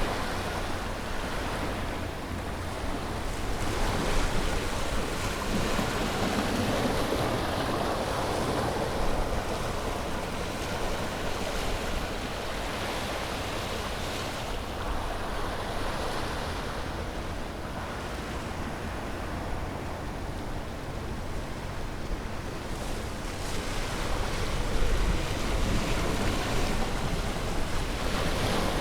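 Ocean waves washing on a shore: a continuous rush of surf that grows louder and fades back every several seconds, with a low rumble underneath.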